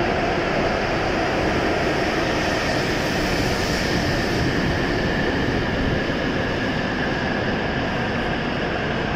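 W7 series Shinkansen train arriving and slowing past the platform at its terminus: a steady rolling rumble with a faint steady high tone over it, getting a little quieter after about six seconds as it brakes toward its stop.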